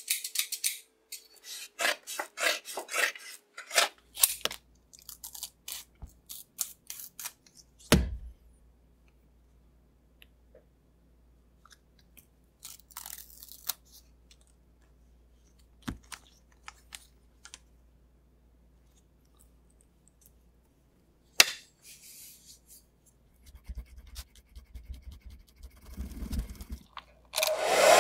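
Scissors snipping through prepreg carbon fiber fabric in a run of quick crunchy cuts, with a sharp knock about eight seconds in. After a long quiet stretch come another knock and crinkly handling of film, and a hair dryer switches on at the very end.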